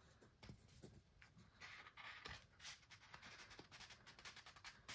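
Faint rustling and scraping of cardboard and paper packaging being handled and slid apart, with irregular light clicks and taps and a louder scrape near the end.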